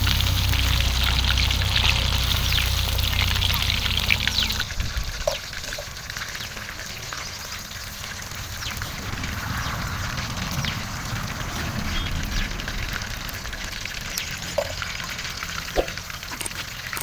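Marinated chicken 65 pieces deep-frying in hot oil in a kadai, a steady sizzle with crackling, as the fully cooked pieces are lifted out with a perforated skimmer. The frying is louder for the first four seconds or so, then drops to a softer crackle.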